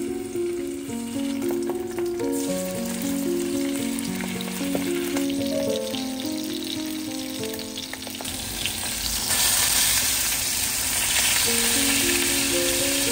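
Salmon fillets frying in hot oil in a nonstick pan: a steady sizzle that grows much louder about eight to nine seconds in. Light background music with a simple melody plays over it, dropping out in the middle and returning near the end.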